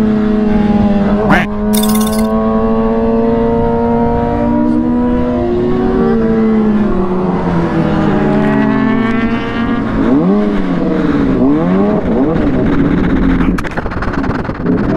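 Honda CBR600RR's inline-four engine running at high revs on a racetrack: the pitch holds fairly steady, falls away for several seconds as the bike slows, then rises and drops in a few short swells. A single sharp click sounds about a second and a half in.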